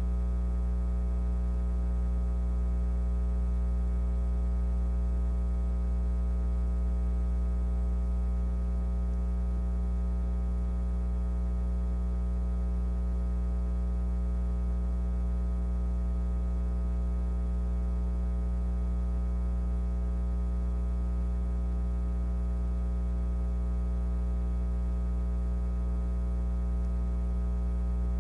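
Steady electrical hum with a stack of even overtones, unchanging throughout, like mains hum picked up in an audio line.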